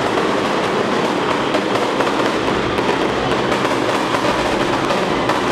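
A dense, unbroken crackle of firecrackers going off in rapid succession, steady in loudness throughout.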